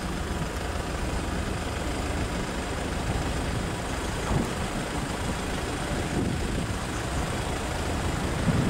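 Low, steady rumble of a Class 170 Turbostar diesel multiple unit approaching the level crossing, growing slightly louder toward the end.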